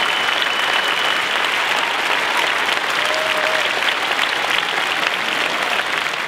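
Large audience applauding, dense and steady, with a brief high whistle near the start.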